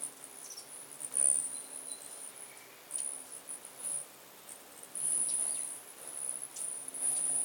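Many hummingbirds feeding together: a very high, thin buzzing whirr that comes and goes in bursts as birds dart in and out, with a few sharp chip notes.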